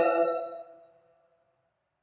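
A male reciter's tajweed Quran recitation: the last held, melodic note of a verse trails off over about a second, then silence.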